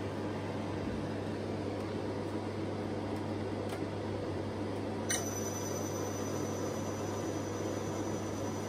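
Fanuc A06B-0859-B200 spindle motor running steadily on a test bench: an even hum with machine noise. About five seconds in there is a click, and a thin, high, steady whine starts and holds.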